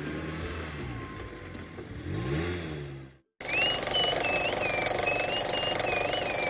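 Vehicle engine sound effect, a low hum gliding up and down in pitch as the trucks drive off, cutting out suddenly about three seconds in. It is followed by a light music track with a high wavering melody.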